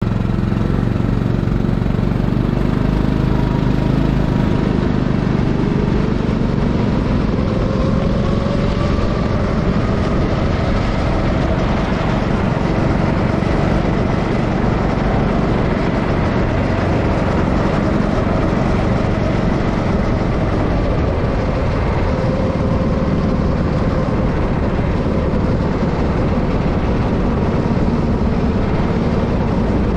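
Racing kart engines running, fairly steady and low for the first few seconds, then revving up and down continuously.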